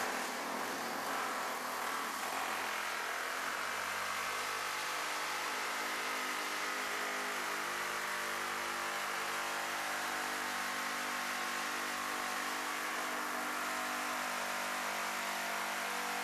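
Pneumatic air hammer fitted with a Skin Zipper forming head, running continuously as it folds over a car door skin's flange. It starts suddenly and then holds a steady, even buzz.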